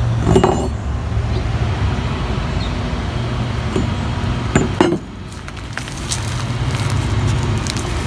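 A steady low rumble, with a few light knocks and clinks from a metal mower shift lever being handled; the sharpest knock comes about halfway through.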